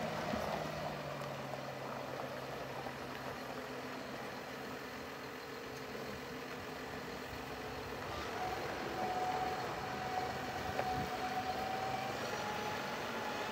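John Deere 6155M tractor's diesel engine running steadily at idle. A steady whine joins about eight seconds in and rises a little in pitch near the end.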